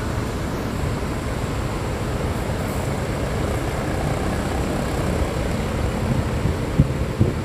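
A large coach's diesel engine running with a steady low rumble, and two short knocks near the end.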